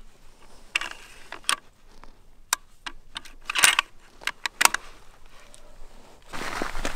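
Riflescope turret being dialed by hand: a series of sharp, irregularly spaced clicks, a few louder ones bunched together midway. A rustle comes up near the end.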